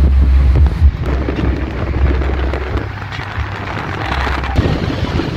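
Deep bass notes from a car sound system, coming in blocks that start and stop every second or two, over heavy wind and road rush on the microphone of a moving car.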